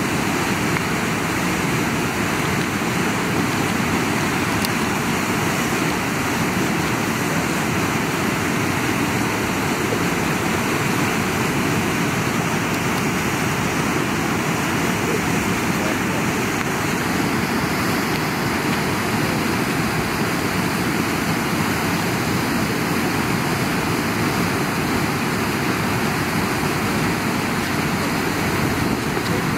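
Steady, unbroken rush of flowing river water.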